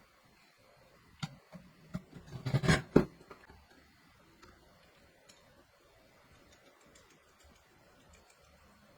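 A short run of sharp clicks and knocks, loudest near three seconds in, from small parts and tools being handled while a laser CNC machine is assembled.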